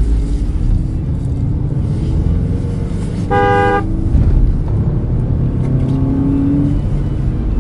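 A vehicle horn toots once, briefly, about three seconds in, over a steady low engine rumble whose pitch slowly rises and falls.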